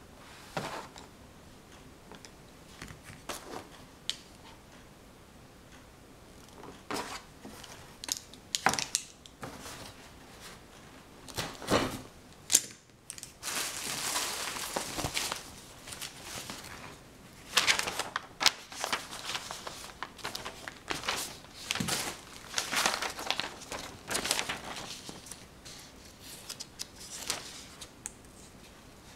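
Objects being handled: irregular crinkling and rustling, with sharp clicks and taps coming in bursts separated by short pauses. The crinkling is densest from about the middle of the stretch onward.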